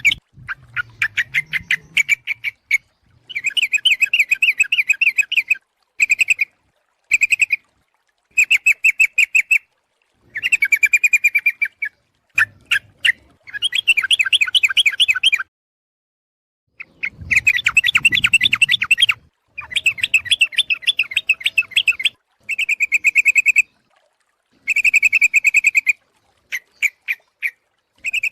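Sooty-headed bulbul (trucuk) calling in quick chattering bouts of rapid notes, each lasting from half a second to two seconds, with short silent gaps between them. This is a lure call for trapping, given as a female calling the male.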